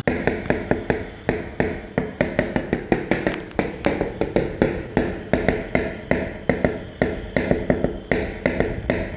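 Hammer tapping repeatedly on metal, about three to four light, evenly paced strikes a second, each with a short ring.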